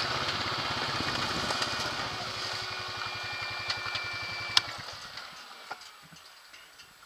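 ATV engine idling, then switched off about four and a half seconds in with a sharp click, after which only faint small ticks remain.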